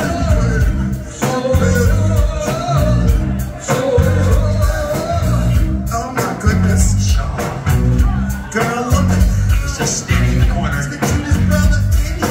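Live rock band playing loud: men singing into microphones over electric guitar, bass guitar and a drum kit keeping a steady beat.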